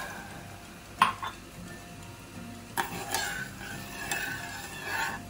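A metal spoon stirring sugar and water in a nonstick saucepan to start a sugar syrup, scraping and clinking on the pan. There is a sharp knock about a second in, another near three seconds, and a run of scrapes and clinks after it.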